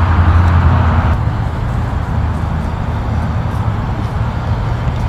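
Steady low rumble of outdoor background noise, easing slightly about a second in.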